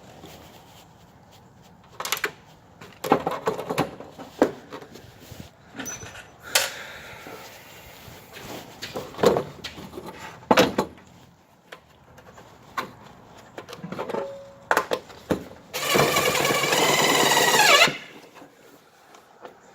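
Scattered knocks and clatter of the metal panel box being handled against the wall, then a power drill runs for about two seconds near the end, driving a screw partway in to hold the panel in place.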